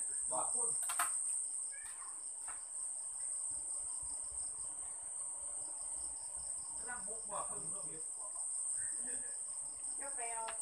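Insects droning steadily at a high pitch, with a second insect chirping in rapid, even pulses that pause briefly midway. A sharp click about a second in.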